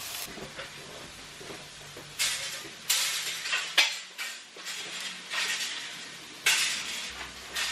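Clattering as a white metal-framed clothes airer is lifted and folded up, in several separate bursts, with a faint frying sizzle from a pan of vegetables in the first couple of seconds.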